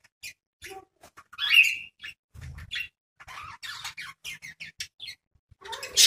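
Pet budgerigars and a cockatiel calling, with short chirps and chatter and one loud squawk rising in pitch about a second and a half in. There is another loud call near the end.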